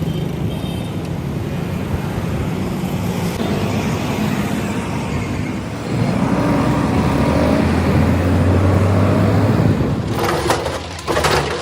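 Road traffic with a motor vehicle engine running steadily. The engine gets louder from about six seconds in, then drops off, and a few sharp knocks follow near the end.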